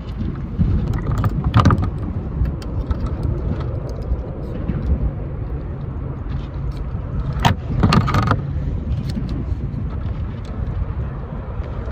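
Metal pliers clicking and rattling against a hook and landing net while a hook is worked out of a freshly caught mangrove snapper, loudest about a second and a half in and again around eight seconds in, over a steady low rumble of wind on the microphone.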